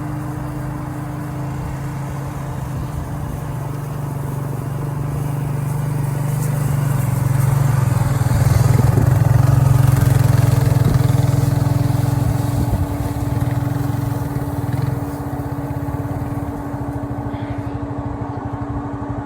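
Honda 420cc ATV engine running steadily under load while skidding a long log, growing louder toward the middle and then easing off.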